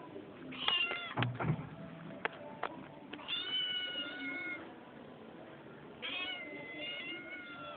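Kitten meowing three times in a high voice: one short meow, then two long drawn-out meows of over a second each. A few light knocks fall between the first two meows.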